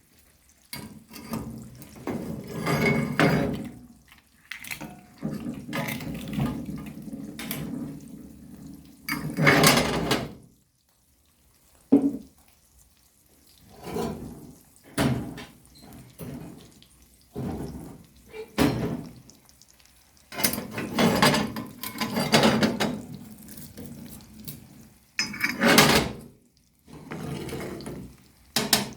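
Kitchen work at a sink: water running from a tap in short stretches, with dishes and utensils knocking and clinking in between.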